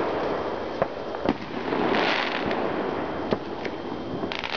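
Neighbourhood fireworks going off: several separate sharp bangs over a continuous background of more distant explosions. A hissing burst comes about two seconds in, and a quick run of crackling pops near the end.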